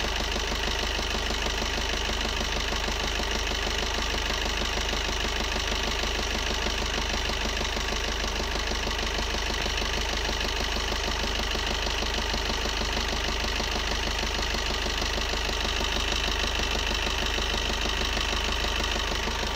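Maruti Baleno's 1.3-litre diesel engine idling steadily with an even, rapid clatter, running while a carbon-cleaning treatment is injected into it.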